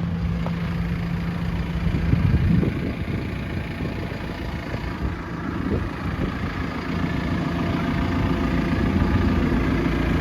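JCB 3CX backhoe loader's 4.4-litre diesel engine idling steadily, with a louder low rumble about two seconds in.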